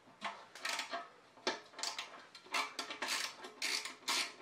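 Hand socket ratchet clicking in short strokes, about two to three a second, as it cracks loose the small assembly bolts of a three-piece wheel, metal clinking on metal.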